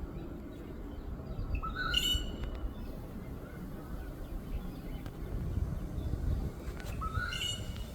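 A bird calling twice, about five seconds apart: each call is a short rising note followed by a quick rush of higher, chattering notes.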